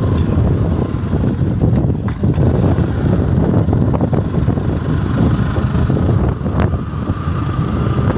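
Wind buffeting the microphone of a moving motorcycle: a loud, steady, fluttering rumble from riding along a dirt track.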